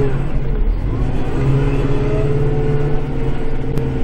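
Kubota tractor's diesel engine running steadily, heard from inside the cab, with a steady whine above the engine hum.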